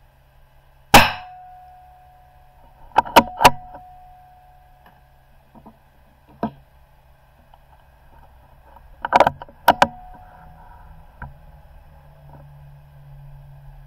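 .22 rimfire benchrest rifle firing a single shot about a second in, a sharp crack with a short metallic ring. It is followed by quick metallic clicks of the bolt being worked and a fresh round being loaded, with another cluster of clicks and clatter from the action near the end.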